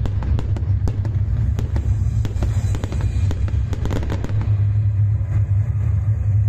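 Aerial fireworks bursting in a rapid run of bangs and crackles that thins out after about four seconds, over a steady low rumble.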